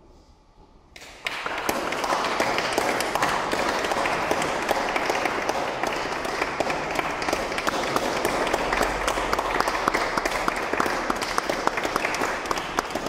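Audience applause: many hands clapping, breaking out suddenly about a second in and going on steadily at the close of the piece.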